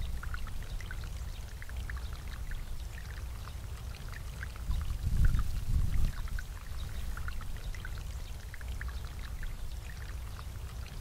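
Water welling up from a garden bubbler fountain and falling back, a steady patter of small splashes and drips, with a low rumble that swells about five seconds in.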